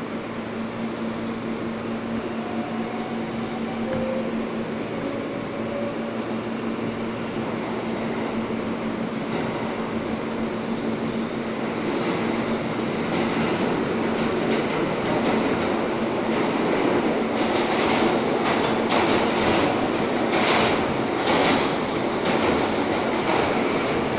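R143 subway car pulling out of a station and picking up speed into the tunnel, its running noise growing steadily louder. A steady hum fades out about halfway, and in the second half the wheels clack sharply over rail joints.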